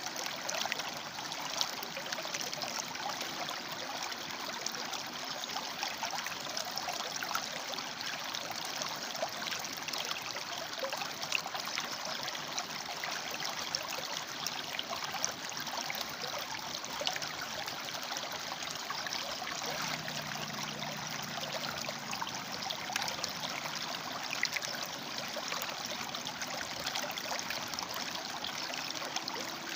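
River water flowing and splashing over and between rocks, a steady, continuous rushing.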